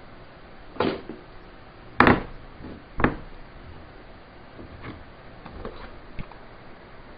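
Doussie-wood shell holder blocks knocking against a wooden workbench and each other as they are handled and stacked: three sharp wooden knocks about a second apart, the middle one loudest. Softer clicks follow as 12-gauge shotgun shells are pushed into the blocks' holes.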